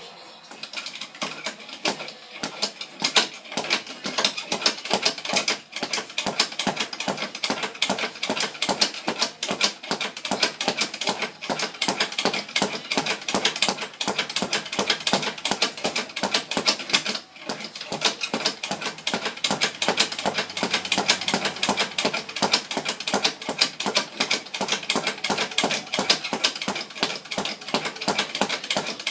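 Speed bag being punched in a fast, steady rhythm, the bag rattling against its swivel mount in a continuous run of quick thuds that falters briefly about two-thirds of the way through.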